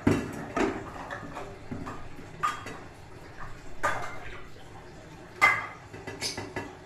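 Kitchen utensils and cookware clinking: about six sharp clinks, some ringing briefly, the loudest about five and a half seconds in.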